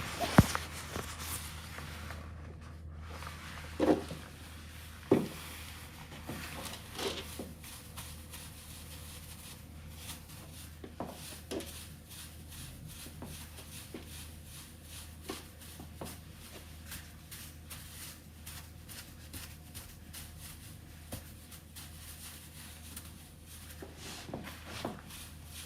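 Quiet handling noises, scattered light clicks and a few knocks, over a low steady hum. The two loudest knocks come about four and five seconds in.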